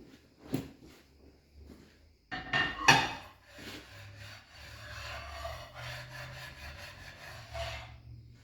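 Cast-iron lathe cross slide set down with a couple of loud knocks on a surface plate about two and a half seconds in, then rubbed around on the inked plate with a steady scraping rub that stops near the end. This is the spotting pass that marks the high spots for hand scraping.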